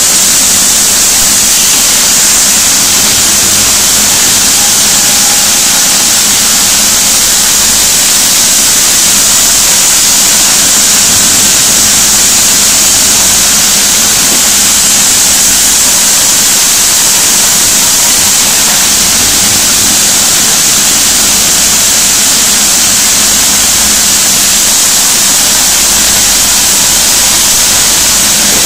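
Sawmill saw and its machinery running without a break: a loud, steady hiss, strongest high up, over a faint low hum.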